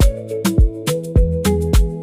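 Background music with a steady beat: deep bass drum hits about twice a second under crisp high percussion and a bass and melody line, in an Afrobeat-like style.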